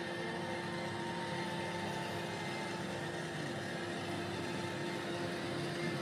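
iRobot Roomba i7+ robot vacuum cleaning a rug: a steady whir of its vacuum motor and brushes, with a steady hum tone underneath.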